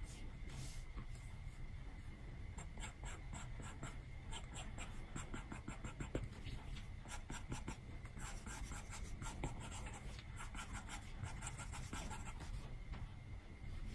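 Apple Pencil tip tapping and stroking on an iPad's glass screen: quick, irregular light clicks and scratches while drawing, over a faint steady hum.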